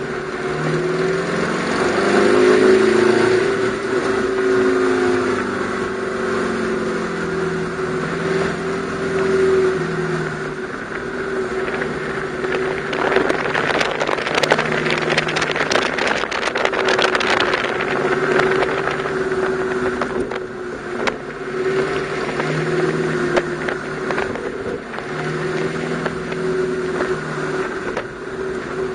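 Ferrari F430's 4.3-litre V8 engine, heard from the open cabin, rising and falling in pitch again and again as the car accelerates and slows through a cone course. A rush of noise joins it through the middle stretch.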